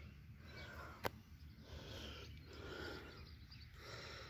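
Faint outdoor background noise with a low steady hum, broken by one sharp click about a second in.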